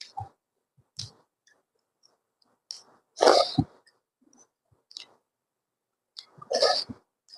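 Close-miked eating: small mouth clicks and smacks, with two louder, longer bursts of chewing about three and six and a half seconds in.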